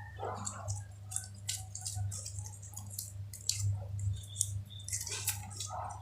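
Sticky slime being squished and worked by hand: a run of small wet clicks and pops, over a steady low hum.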